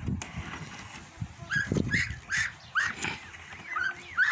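Young domestic geese peeping: a string of short, high calls about two a second, each rising and then dropping in pitch, starting about a second and a half in.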